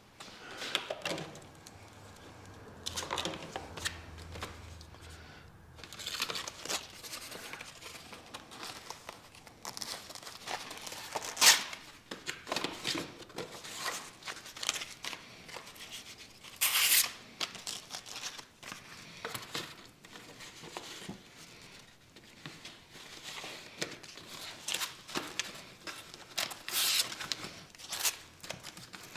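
Someone rummaging through supplies on a workshop shelf: irregular rustling and crinkling of handled paper or packaging, with scattered clicks and knocks, the sharpest about eleven and a half seconds in.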